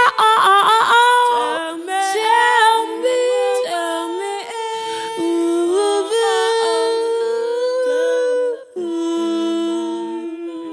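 Wordless layered female vocal harmonies sung a cappella: several voices holding long notes together, with a quick run of ornamented notes about a second in.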